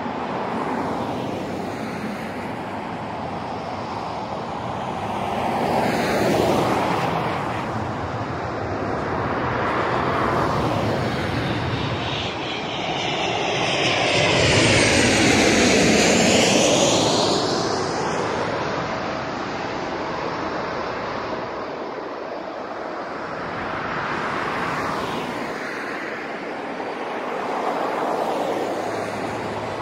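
Jet airliner engine roar from the runway, mixed with the rush of vehicles passing on the road in front. The sound swells and fades several times and is loudest about halfway through.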